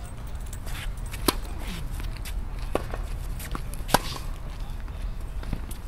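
Tennis racket strikes on the ball during a rally: two sharp pops about two and a half seconds apart, the second the loudest, with fainter knocks between them.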